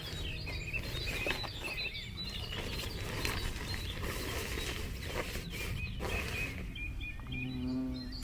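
Small birds chirping repeatedly in short high calls over a steady low rumble of outdoor noise.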